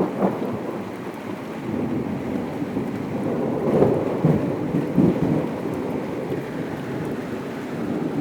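Heavy rain falling steadily in a thunderstorm, with a rumble of thunder that swells up in the middle and dies away again.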